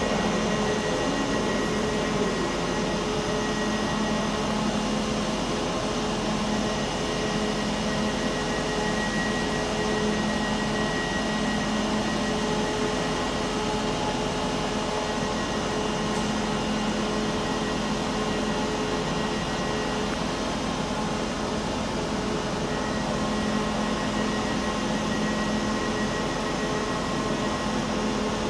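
Steady mechanical hum from a Northern passenger train standing at the platform, its onboard machinery running with a few steady tones over an even hiss.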